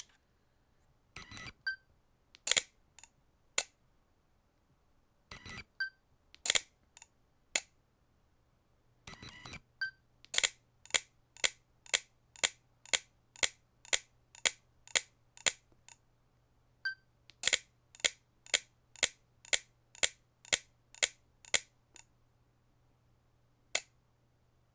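Camera shutter clicks: a few single shots, then two runs of rapid shots at about two a second, each group led by a short beep, and one last click near the end.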